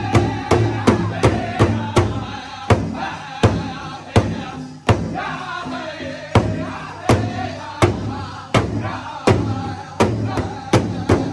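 Powwow drum group: men singing together over a large hide drum that they strike in unison with beaters. The beat starts at about two strokes a second, slows in the middle to a stroke about every three-quarters of a second, and quickens again near the end.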